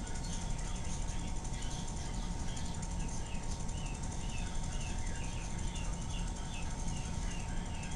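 Sony Betamax SL-2500 video recorder running its tape in picture search: a steady mechanical whir and hum, with a run of short high chirps about twice a second through the middle.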